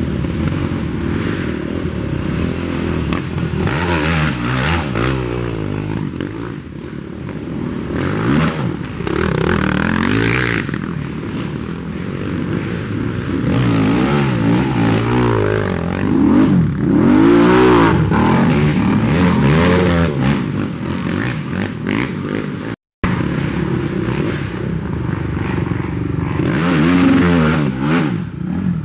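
Several racing ATV engines revving hard and passing, their pitch repeatedly rising and falling as the riders accelerate and shift. The sound cuts out for a split second a little over three-quarters of the way through, then resumes.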